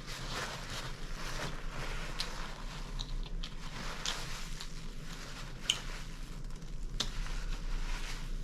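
A person chewing a mouthful of crispy fried chicken sandwich close to the microphone: steady crunching and chewing with a few sharper clicks.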